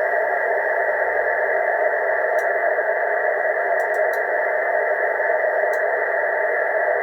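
Steady receiver hiss from a 9 cm amateur radio receiver's audio output, narrow and without highs or lows, at a raised level: the dish is on the sun's main lobe and the extra noise is sun noise.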